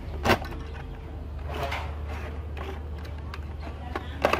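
Plastic handling sounds from a portable radio's battery compartment as the battery is worked: a sharp click about a third of a second in, rubbing and rattling in the middle, and a couple more clicks near the end. A steady low hum sits underneath.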